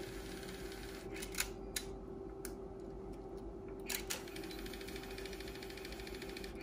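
Aiwa HS-PL30 cassette walkman's controls clicking as its buttons are operated during a test run: several sharp, irregularly spaced mechanical clicks over a faint steady hum. From about four seconds in, a faint, fast, even whirring comes in.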